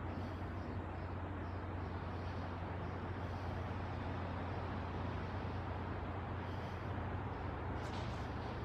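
Steady outdoor background noise: a constant low rumble under an even hiss, with a brief rustle about eight seconds in.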